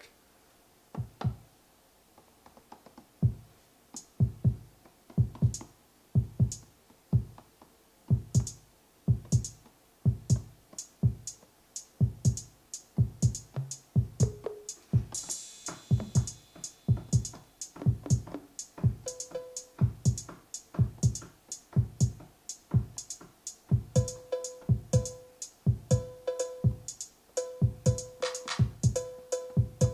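Electronic 808-style drum-machine beat played from an Ableton Push, being built up as it loops: a few kick hits at first, then a steady pattern of kicks and hi-hat ticks. One noisy cymbal-like hit comes about halfway, and a repeated pitched 808 cowbell joins in the last third.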